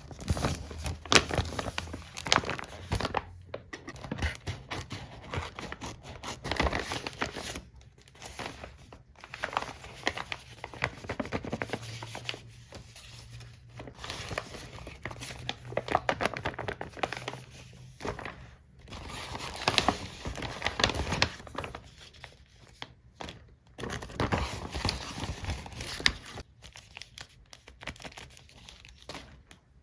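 Packaging being handled in irregular spells: crinkling, rustling and being torn open.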